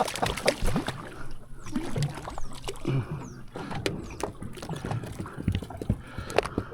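Irregular knocks and clicks of gear being handled aboard a small fishing boat, with faint water sounds against the hull.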